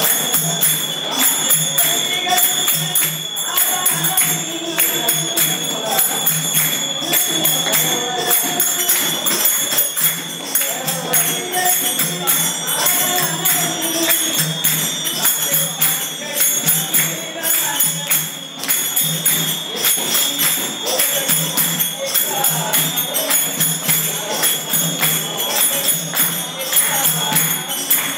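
Devotional music: metallic percussion jingling on a quick beat over chanting or singing voices, with a steady high tone above it.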